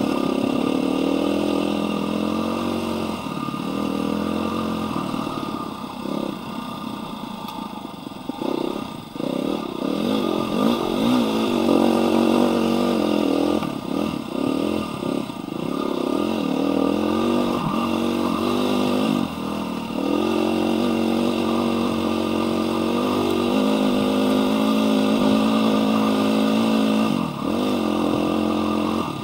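Dirt bike engine heard from the rider's seat, its pitch rising and falling as the throttle opens and closes through the gears. It eases off for a couple of seconds about seven seconds in, then pulls again.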